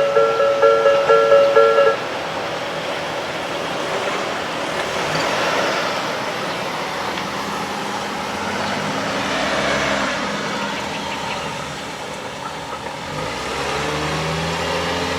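Electronic alarm bell of a Japanese railway level crossing ringing in quick repeated dings, cutting off about two seconds in once the train has cleared. After that comes steady road-vehicle noise as cars pass, with an engine sound swelling near the end.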